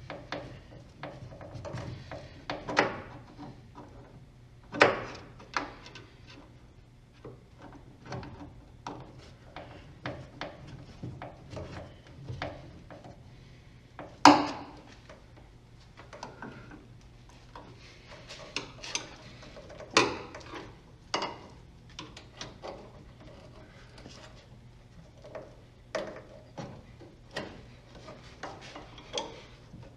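Hand work on car parts: irregular knocks, clicks and rubbing of tools and parts being handled, with a few sharper knocks, the loudest about fourteen seconds in.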